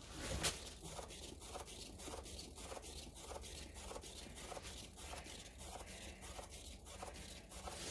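Paint-pouring turntable spinning a freshly poured canvas, giving a faint, even clicking about four times a second.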